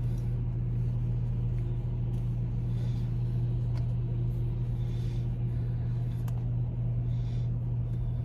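Steady low hum of a car idling, heard inside the cabin, with a couple of faint clicks.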